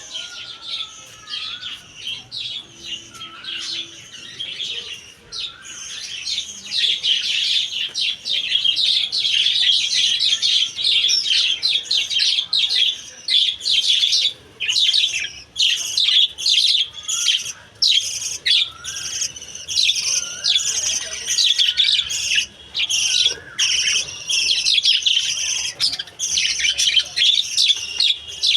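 Budgerigars chattering: a continuous run of quick, warbling chirps that grows louder and busier about six seconds in.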